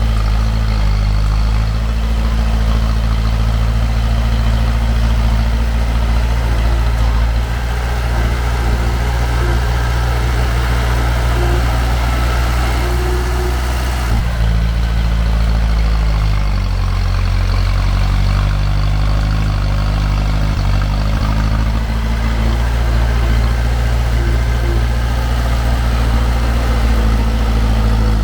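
Heavy machinery's diesel engine running steadily with a deep drone. Its engine note changes about halfway through and shifts again a couple of seconds later.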